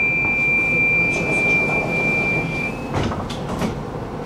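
Tram door-closing warning tone: one steady high beep lasting about three seconds, then a few knocks as the sliding doors shut, over the steady hum of the tram interior.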